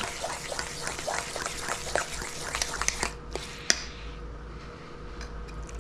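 Fork beating an egg into a wet mixture of chopped vegetables and breadcrumbs in a stainless steel bowl: quick clicks of the fork against the metal and wet squelching, stopping about three seconds in, followed by one sharper click.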